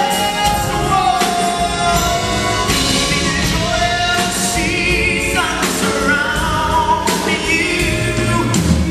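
A male singer sings a slow Christmas ballad live into a handheld microphone, with a sustained vocal line over instrumental accompaniment and occasional drum hits.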